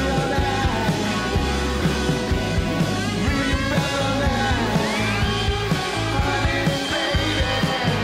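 Rock music with a steady drum beat and bass under held pitched lines, and a high note sliding upward about five seconds in.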